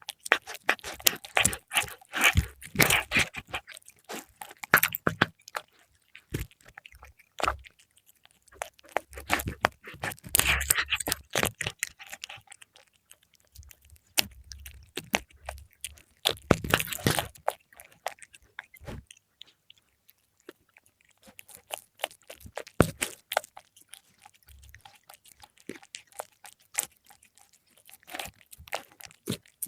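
A cat chewing and crunching fried milkfish, with wet smacks and crisp crunches coming in irregular clusters and short pauses between bites.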